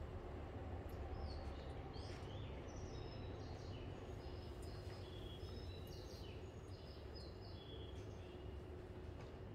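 Faint bird-like chirping, a run of short clear high notes at several pitches, over the steady low hum of a station platform.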